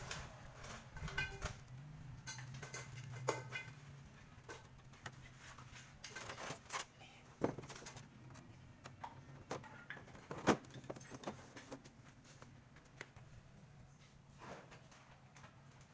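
Scattered sharp clicks and light metallic clinks of small tools and screws being handled, the loudest about halfway through, over a steady low hum.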